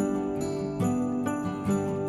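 Background music: a Christmas-style tune with jingle bells over a steady beat, about two strikes a second.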